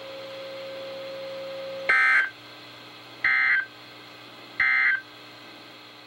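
NOAA Weather Radio SAME end-of-message code: three short bursts of warbling digital data tones, evenly spaced about a second and a third apart, marking the end of the alert broadcast. The bursts come after a steady low tone that lasts about two seconds.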